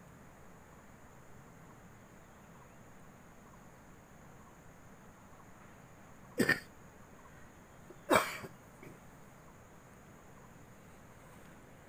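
Two short coughs about a second and a half apart, over a faint steady hiss.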